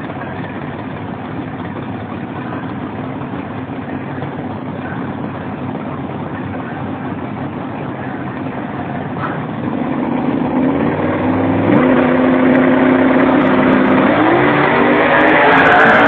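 Drag-race car engines running at the starting line, then launching and accelerating hard down the strip. From about ten seconds in the engine noise grows louder, and its pitch climbs in two steps to its loudest near the end.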